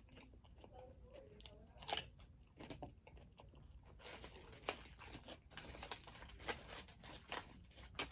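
Close-up crunching and chewing of a raw radish, with sharp irregular crackles that come thicker in the second half.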